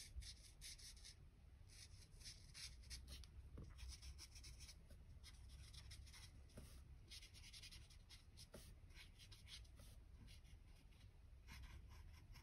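Faint, irregular scratching of a felt-tip marker stroked over paper, colouring in and blending shading on flower petals.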